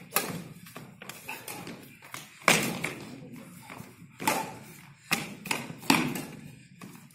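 Badminton rally: racquets strike the shuttlecock back and forth, sharp hits one to two seconds apart, with players' footfalls on the wooden court in between.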